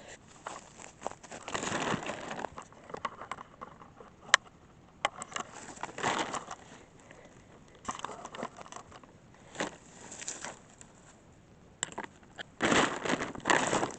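Irregular rustling and crunching from hands-on work setting up a tarp shelter, in several short bouts, with a single sharp click about four seconds in.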